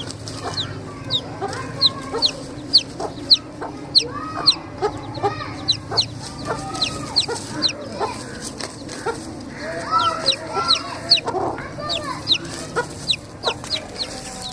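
Domestic chicks peeping, a quick run of short high falling peeps, with a hen clucking lower beneath them; the clucking is busiest about two-thirds of the way through.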